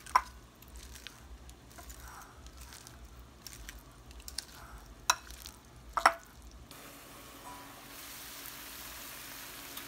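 Metal tongs and spoon tossing shredded red cabbage in a thick avocado dressing in a glass bowl: soft wet squishing with a few sharp clinks of metal on glass, the loudest about five and six seconds in. From about seven seconds in, a steady faint hiss of barbecue jackfruit simmering in a pan.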